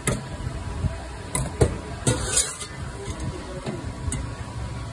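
Street-food stall background: a steady low traffic rumble, with a few sharp clinks of steel utensils and a short clatter about two seconds in.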